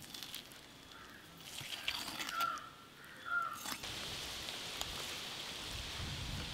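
A few soft knife taps on a wooden chopping block while a tuna loin is sliced. About four seconds in, a steady watery hiss sets in, like rain falling.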